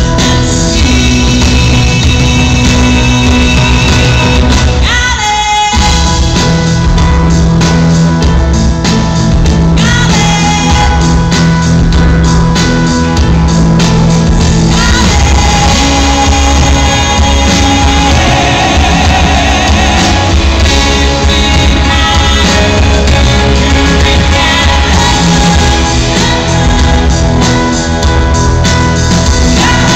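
Loud live country-pop rock band with a female lead singer over electric guitars, bass and drums, heard from the crowd in an arena. The band drops out briefly about five seconds in, then comes back in.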